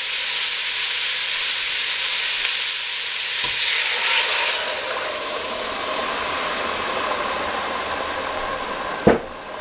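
Leeks, celery root and asparagus sizzling in hot olive oil in a stainless-steel stockpot. Water is poured in about four seconds in, and the sizzle then drops to a quieter, lower hiss. A single sharp knock near the end.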